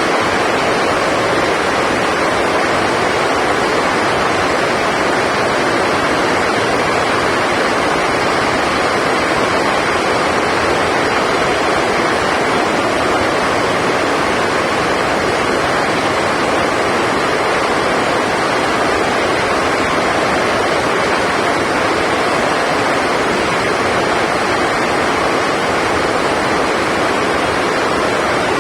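Heavy rain falling: a loud, steady hiss that keeps on without let-up.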